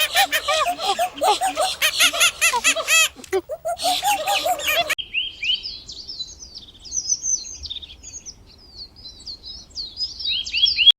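A crowd of birds peeping in quick, overlapping arched calls. About five seconds in, a sudden cut leads to sparser, higher, thinner bird chirps.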